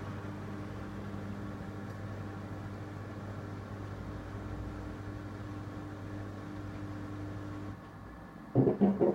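Siemens iQ300 washer dryer starting a drying cycle: a steady low buzzing hum, which the owner puts down to a warped dryer fan, stops suddenly about three-quarters of the way through. A few quick knocks follow near the end.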